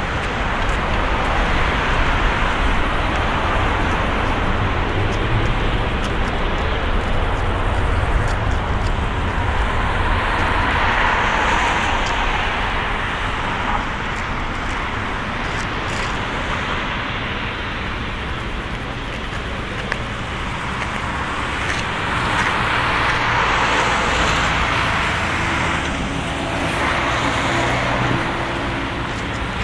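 Boeing 767-300ER's twin jet engines at takeoff thrust: a loud, steady rushing jet noise that swells and eases several times as the airliner rolls down the runway, lifts off and climbs away.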